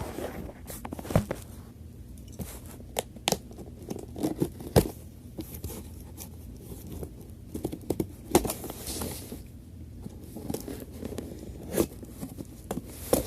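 A subscription box being opened and unpacked by hand: paper and packaging tearing and crinkling, with scattered sharp knocks and taps as the box and its contents are handled.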